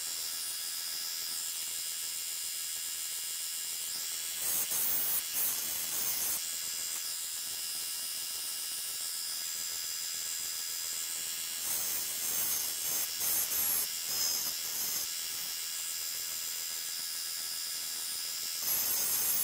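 Belt sander running steadily with a high whine, while a small piece of 316 stainless steel is pressed against the belt in short spells of grinding: about four seconds in, again from about twelve to fifteen seconds, and once more near the end.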